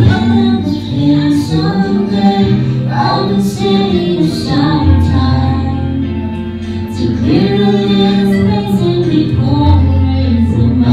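A man and a woman singing into microphones over amplified backing music with long steady bass notes.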